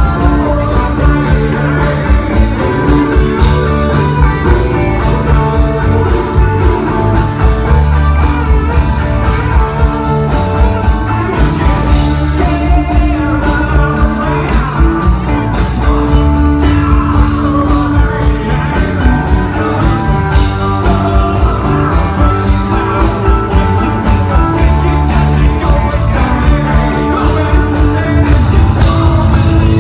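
Live rock and roll band playing with electric guitars, bass, keyboard and a steady drum beat, with singing.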